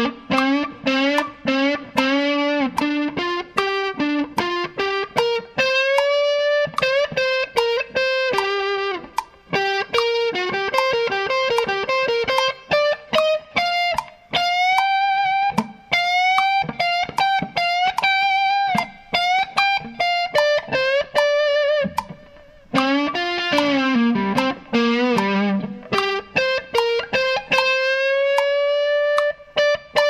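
Music led by a guitar playing a melody of quick notes with sliding bends.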